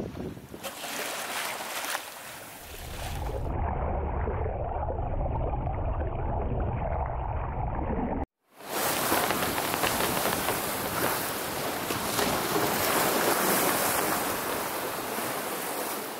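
Wind and rushing sea water around a sailing yacht under way. In the middle comes a stretch of muffled underwater water noise with a low rumble. It cuts off abruptly with a moment of silence, and open-air wind and waves return.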